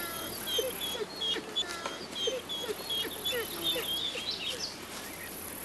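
Small birds chirping: many quick, short high calls repeated throughout, over a faint outdoor hiss.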